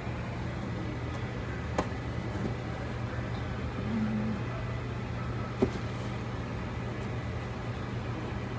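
A steady low mechanical hum with two sharp knocks, about two seconds in and again near six seconds.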